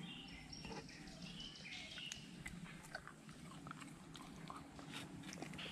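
Golden retriever chewing a slice of fruit: a scatter of faint clicks from its mouth and teeth.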